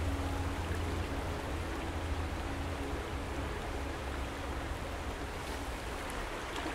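Steady rush of a fast, shallow river, with the tail of a music track's low notes fading out over the first few seconds.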